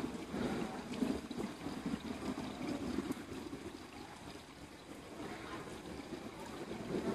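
Heavy downpour of rain pouring down and splashing on paved ground.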